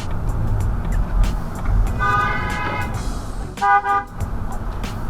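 Car horns honking over a steady low traffic rumble: one honk held for about a second, starting about two seconds in, then a short toot a little later. Drivers are honking in protest at a car blocking traffic.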